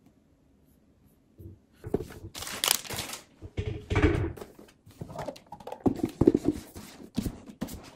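Knocks, taps and rustles of a MacBook Pro laptop and its cardboard box being handled during unboxing, starting about a second and a half in.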